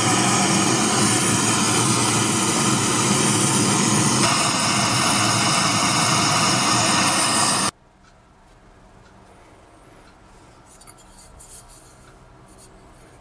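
Gas torch flame hissing steadily while it heats a brass boiler for soldering, cutting off abruptly about eight seconds in. After that there are only faint handling ticks.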